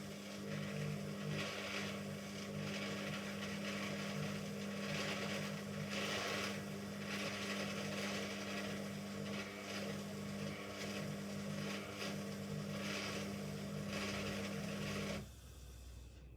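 Hoover Ecologic Computer washing machine on a high-speed spin: a steady motor hum with a swishing from the drum that swells and fades about once a second. The motor cuts out suddenly near the end.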